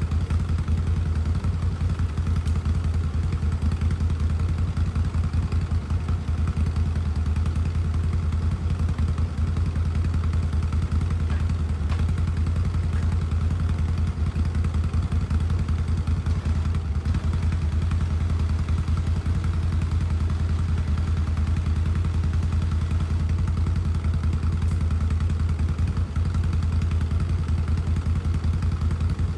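Small gasoline engine running steadily at an even speed, with no revving up or down.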